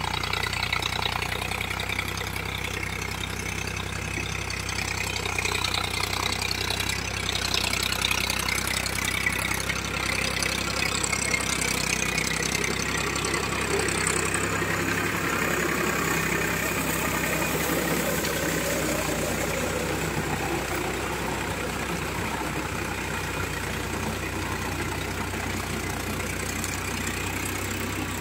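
Powertrac tractor's diesel engine running steadily while it pulls a rotary tiller through wet, muddy ground.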